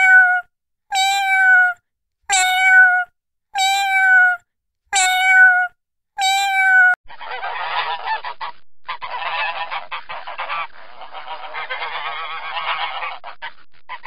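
A kitten meowing six times at an even pace, each mew about half a second long and settling slightly lower in pitch. About seven seconds in, it gives way to a dense, continuous chatter of waterfowl calls.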